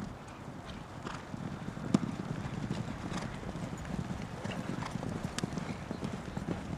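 Hoofbeats of several polo ponies cantering on arena dirt, a dense run of thuds, with a single sharp knock about two seconds in.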